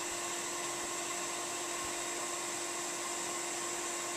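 Okamoto 1224-DX surface grinder running with its grinding wheel spinning before it reaches the work: a steady hum under a high whine and even hiss, with no change in the sound.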